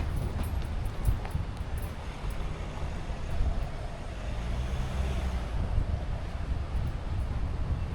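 Kia Sportage driving: a steady low rumble of engine and tyre noise, with a faint engine drone around the middle.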